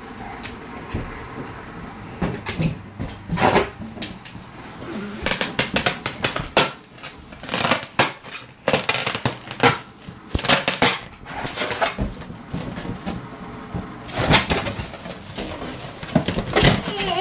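Irregular clatter and knocks of small children playing with plastic toys on a hard tiled floor.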